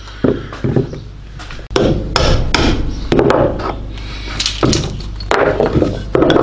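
A run of irregular hammer taps, roughly two a second, on a cam-type stud extractor's half-inch square drive, knocking the tool off a stud it has locked onto.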